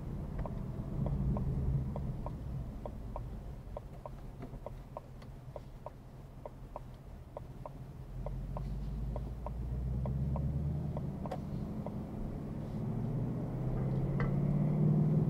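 Ford Mustang GT's V8 running at low revs, with a turn-signal indicator ticking a little over twice a second for most of the stretch until the ticking stops. Near the end the engine note builds louder.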